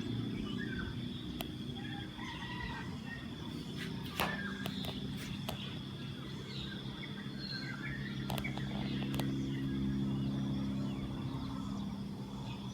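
Outdoor morning ambience with a rooster crowing and small birds chirping, over a steady low hum and a continuous high-pitched tone. A few sharp clicks come about four seconds in.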